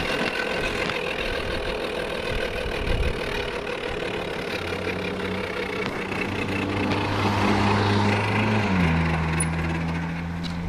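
Harley-Davidson XLH1200 Sportster's V-twin engine running: a rough, noisy sound at first, then a steady low hum that drops in pitch a little over two-thirds of the way through. The owner is recording it because of an abnormal noise (異音) on the bike.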